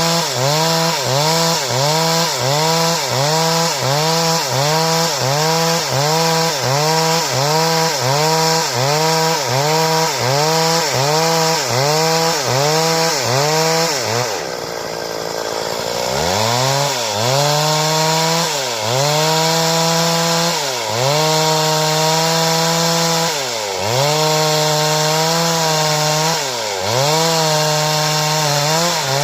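Stihl chainsaw cutting wood into boards. The engine pitch dips under load in a quick even rhythm of about three dips every two seconds. About halfway through it falls low for a couple of seconds, then revs back up and runs in longer steady stretches broken by dips every few seconds.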